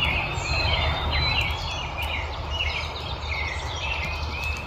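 Songbirds singing in the early-morning chorus: many short chirps and warbled phrases overlapping, over a steady low rumble.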